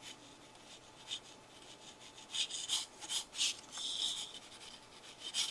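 Marker tip rubbing across newsprint in short scratchy strokes, a few faint ones at first, then a quick run of louder, squeaky strokes from about two seconds in, as dark colour is laid down.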